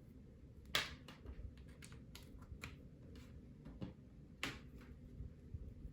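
Faint, scattered clicks and taps of handling, as a thin USB cable and a phone are picked up and plugged together. The two sharpest clicks come about a second in and about four and a half seconds in.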